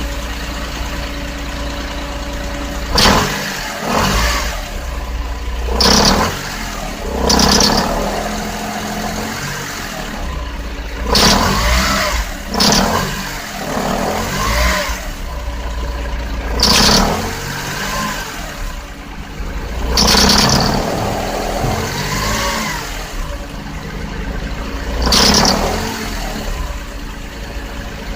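Nissan Otti H91W's three-cylinder 660 cc engine idling, blipped by the throttle about nine times in short revs that rise and fall. The car has an abnormal noise from the engine bay.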